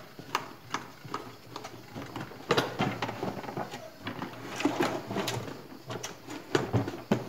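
Irregular clicks, taps and light knocks from handling the inside of a Scheppach HS100S table saw: the handwheel being turned to tilt the motor and blade assembly, and the parts knocking against the plastic housing.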